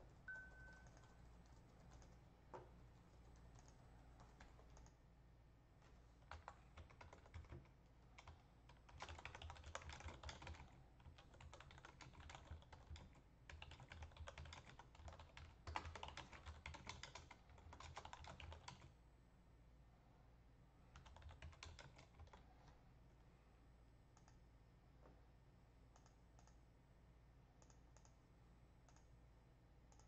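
Typing on a computer keyboard, faint, in several quick runs of keystrokes with short pauses between them, then a shorter run and a few single clicks near the end.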